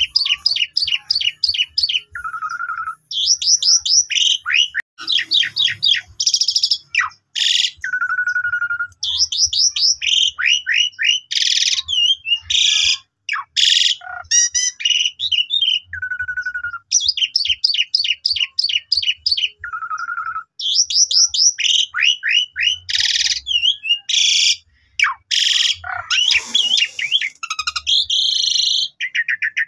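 Asian pied starling (jalak suren) in full song: quick runs of sharp gliding whistles, a lower buzzy note, and several loud harsh rasping calls, with the same phrases coming back again and again.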